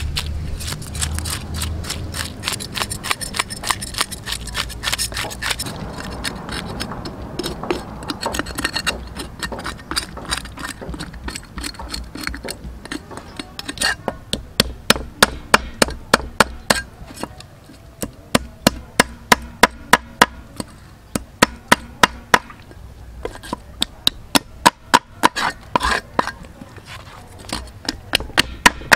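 Cleaver blade scraping the scales off a large whole fish on a wooden chopping block. The first half is a fast, dense rasping of short strokes. From about halfway it becomes a run of separate, louder clicks, several a second, as scales flick off under the blade.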